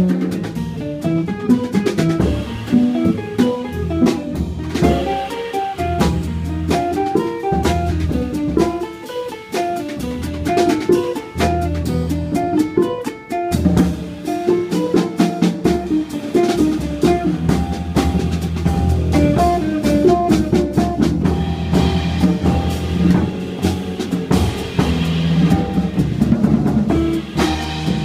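Live jazz trio playing: archtop electric guitar through an amplifier, upright bass and a Gretsch drum kit. Busy guitar lines over plucked bass notes, with frequent sharp drum and cymbal strokes.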